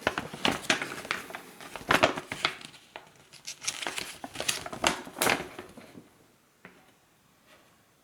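Paper installation guide being handled and unfolded, crinkling for about five and a half seconds, then a couple of faint clicks.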